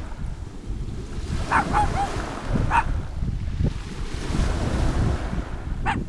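Sea surf on a pebble beach with wind buffeting the microphone as a heavy low rumble. A few short animal calls cut through about one and a half to three seconds in and again near the end.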